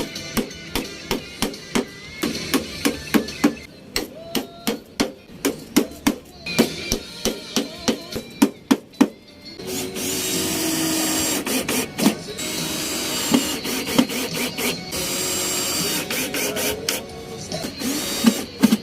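Hammer blows on wood, about three a second, for the first nine seconds or so, with background music. Then a power tool runs steadily with a few knocks through to the end.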